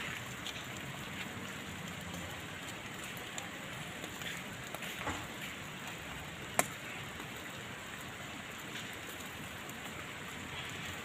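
Whole fish on banana leaves sizzling on a wire grill over coals: a steady hiss with scattered crackles, and one sharp pop about six and a half seconds in.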